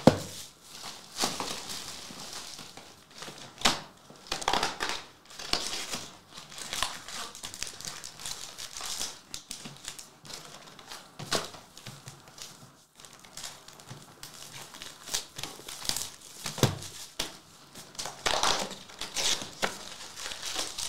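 Plastic shrink wrap being torn off trading card boxes and crumpled in the hand, with foil card packs rustling as they are handled, in irregular crinkling bursts with sharp crackles.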